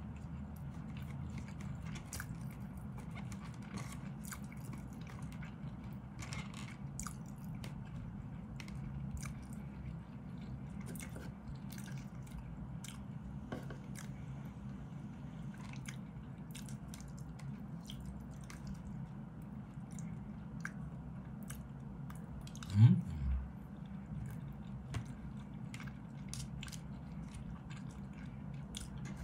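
Chewing rice and ham, with light clicks of a plastic spoon and fork against a plastic food container, over a steady low hum. About three-quarters of the way through, one brief, louder low sound rises in pitch.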